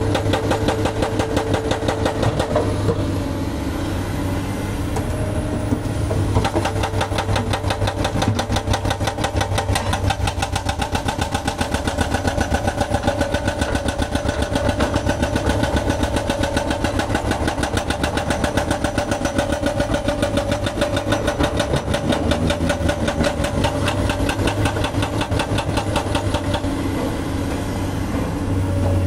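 Diesel engines of hydraulic excavators running under load while they work bridge rubble. From about six seconds in until near the end, a rapid, even knocking rhythm runs over the engine sound.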